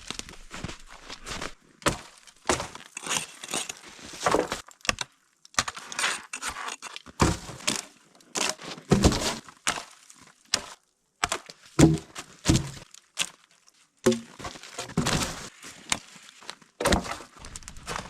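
Irregular handling noises: knocks, cracks and crinkling of a tin-foil-wrapped package being handled.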